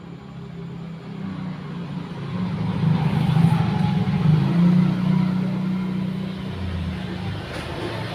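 A motor vehicle passing by, its low engine rumble growing louder to a peak a few seconds in and then fading.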